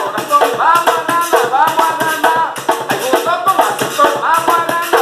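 Upbeat background music: a bright melody over a steady shaker rhythm.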